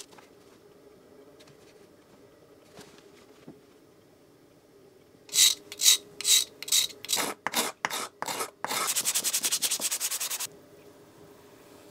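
A knife blade scraping old finish off a Stanley No 10 hand plane's wooden handle in about ten quick rasping strokes, starting about halfway in. Then sandpaper is rubbed rapidly back and forth on the handle for about two seconds and stops suddenly.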